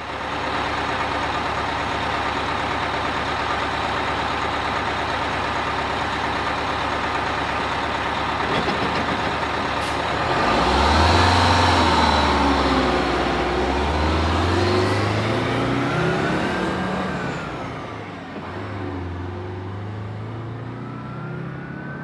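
A motor vehicle's engine running steadily with a dense rumble, then about halfway through it pulls away: its pitch rises, drops as it shifts gear, and rises again.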